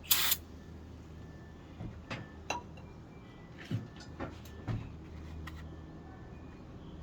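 A short hiss right at the start, then scattered light clicks and knocks of plastic parts as a solenoid is worked loose from a washing machine's plastic water inlet valve, over a steady low hum.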